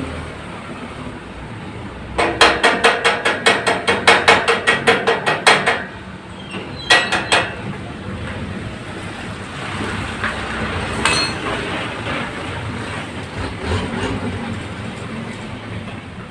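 A quick run of hammer blows on metal, about five or six a second for several seconds, then a couple of further strikes and a single click.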